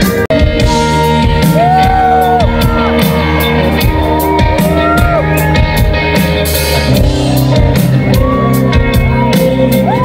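Rock band playing live and loud: electric guitars and a drum kit with regular cymbal and snare hits, and a melodic line sliding up and down above, heard from within the crowd. The sound cuts out for an instant just after the start.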